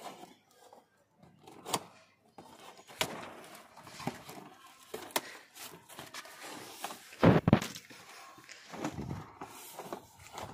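Cardboard shipping box being torn open by hand: flaps pulled and ripped apart with rustling, scraping and scattered knocks, and a loud cardboard thump about seven seconds in.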